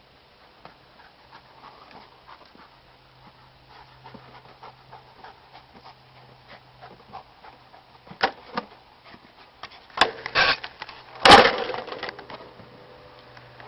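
A dog panting, with scattered small clicks and a few sharp knocks, the loudest about eleven seconds in.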